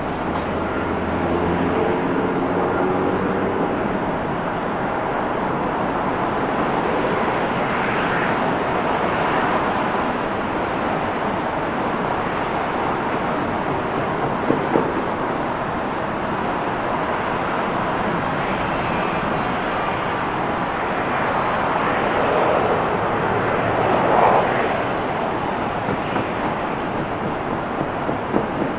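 Jet airliner engines running on the runway: a steady, broad rush of engine noise, with a low hum in the first two seconds and a faint high whine in the second half.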